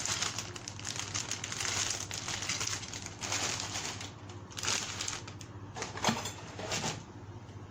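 Plastic packaging and parts bags crinkling and rustling as RC truck kit parts are handled, with a few sharp clicks of hard plastic parts.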